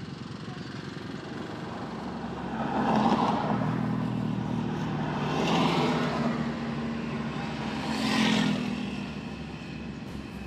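Motor vehicle and road noise on a drive, with three swells that build up and die away about two and a half seconds apart.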